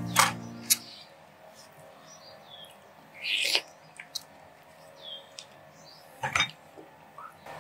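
Background music fades out, then the mangosteens are peeled by hand: sparse clicks and cracks of the thick rind being broken and pulled apart. A few faint bird chirps come in between.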